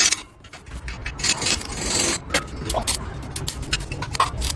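Irregular clicks and knocks over a low rumble, like metal parts being handled and tapped during work.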